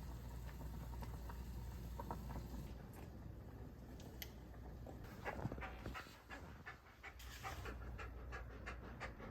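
A large dog panting, with quick regular breaths that become clearer near the end at about four a second.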